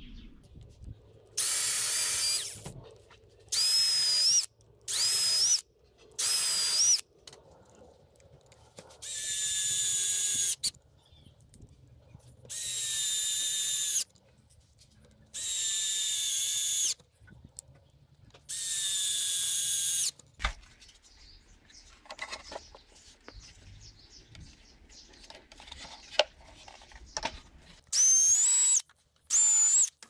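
Power drill run in about ten short bursts of one to two seconds each, with a high whine that climbs in pitch as it spins up in several of them. Light knocks and handling clicks fill a longer quiet stretch between bursts later on.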